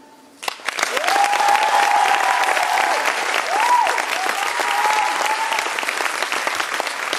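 Audience applause that starts suddenly about half a second in, as the music ends, and keeps going as dense, steady clapping. Long, high drawn-out whoops from the crowd ride over it for the first few seconds.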